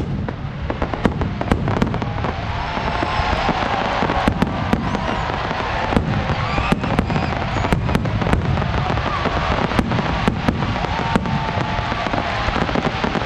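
Fireworks display: a rapid, irregular series of sharp bangs and pops over a continuous dense rumble and crackle.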